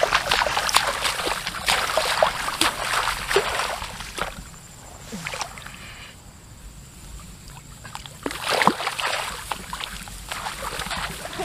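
Someone wading through a flooded rice paddy: water sloshing and splashing around the legs as rice plants brush and rustle against them. The splashing eases off for a few seconds in the middle, then picks up again.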